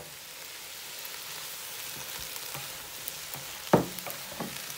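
Chopped tomatoes sizzling in a hot wok with onion and spices as they are stirred with a wooden spoon and spatula, with a few knocks of the utensils against the pan, the loudest about three and a half seconds in.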